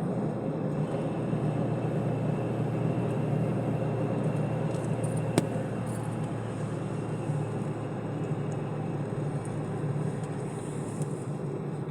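Car engine and road noise heard from inside the cabin, a steady rumble as the car climbs a hill road, with one sharp click about five seconds in.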